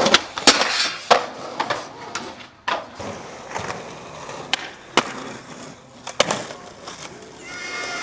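Skateboard grinding along a metal handrail and landing on concrete, then wheels rolling with several sharp clacks of the board popping and landing.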